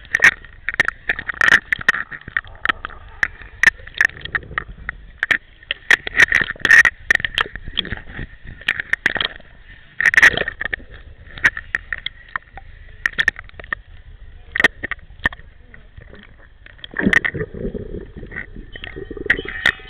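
Pool water sloshing and splashing against a waterproof camera at the surface, with many sharp irregular slaps and clicks. Near the end the camera dips under and the sound gets lower and fuller.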